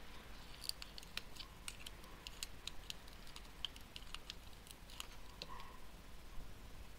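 Faint, irregular small clicks and ticks from work on the ignitor's circuit board as the desoldered hybrid module is worked free of its pads.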